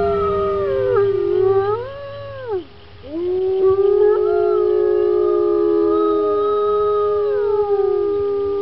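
Wolves howling in chorus: several long howls overlap, each holding a pitch and then sliding down. They drop off about two and a half seconds in, a fresh round of howls starts about a second later, and the voices fall away one by one near the end.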